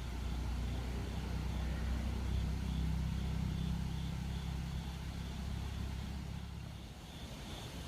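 A low engine hum that swells over the first few seconds and fades away near the end, like a motor vehicle passing.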